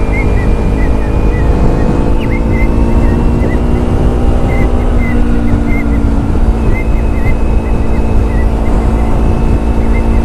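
Motorcycle running at a steady cruise under heavy wind rush on the helmet microphone, the engine's pitch shifting slightly about six seconds in.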